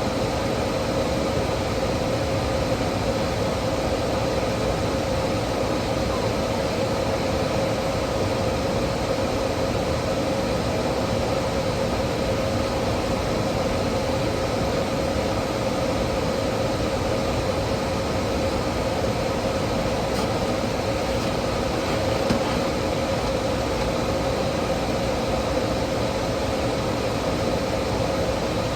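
Steady mechanical hum over an even noise, with a constant tone and no change in level.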